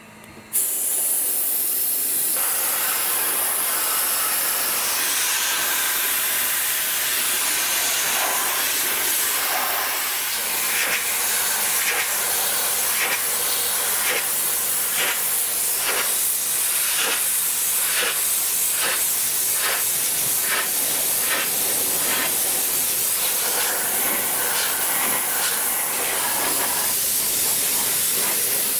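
Dry ice blaster firing a steady loud hiss of compressed air and dry ice pellets against a car's exhaust muffler. It starts about half a second in, with short, regular surges through the middle, about one or two a second.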